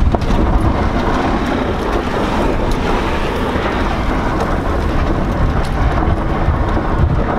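A 1998 GMC Yukon's V8 driven hard in tight turns on loose dirt, heard from inside the cab. The engine runs under load and the tyres churn and throw dirt, making a steady, dense rumble.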